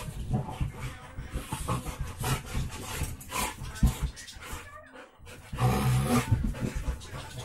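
A golden retriever and a black Labrador tussling on a bed: irregular scuffling, panting and dog noises, loudest around six seconds in.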